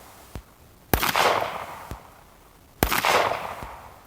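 Two shots from a Star Model B 9mm pistol, about two seconds apart, each with a long echoing tail that dies away. A faint click follows each shot.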